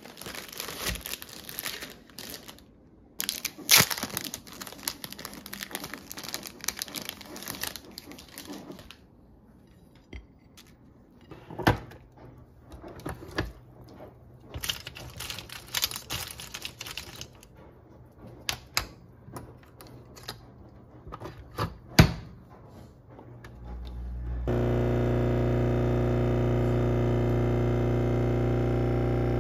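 A plastic bag crinkling as bread is pulled out of it, then scattered clicks and knocks of coffee capsules being handled and loaded into a capsule coffee machine. From about two thirds of the way in, the machine runs with a loud steady hum as it brews.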